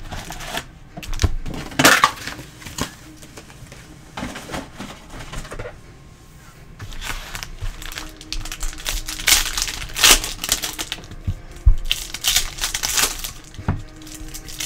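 Foil-wrapped trading card packs crinkling and rustling as they are handled, pulled from their box and stacked on a table, with irregular light clicks and taps; the loudest handling comes in bursts about two seconds in and again between nine and thirteen seconds.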